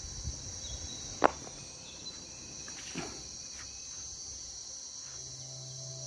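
Steady high-pitched drone of insects in the surrounding trees. A single sharp knock about a second in is the loudest sound, with a softer one about three seconds in.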